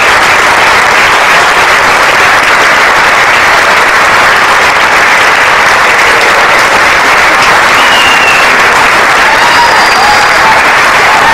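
Audience applauding, a loud steady clapping of many hands.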